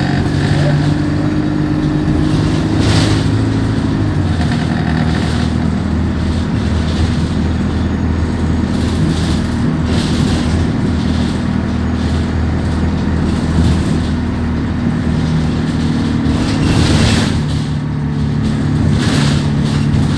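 Alexander Dennis Enviro200 single-deck bus's diesel engine with an Allison automatic gearbox, heard from on board while running. The engine note drops in the first few seconds, holds steady, then rises again near the end, with a few brief rattles or hisses along the way.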